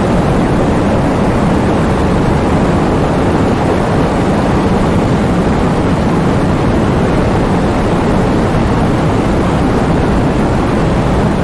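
Heavy rain driven by strong wind: a loud, steady rushing noise, heaviest in the low end.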